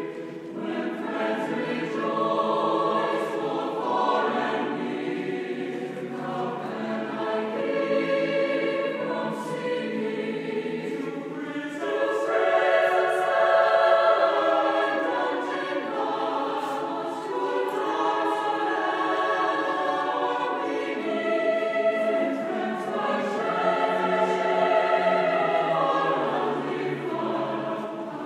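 Mixed-voice chamber choir singing a hymn arrangement in several parts, swelling louder about halfway through and again later.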